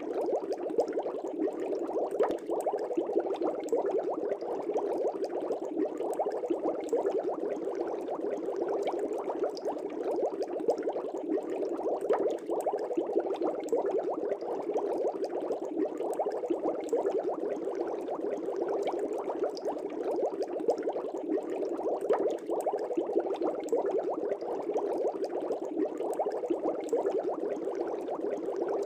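Aquarium air bubbles rising and breaking at the water surface: a dense, steady bubbling with many small pops.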